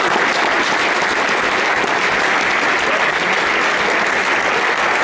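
An audience applauding: many hands clapping at a steady level.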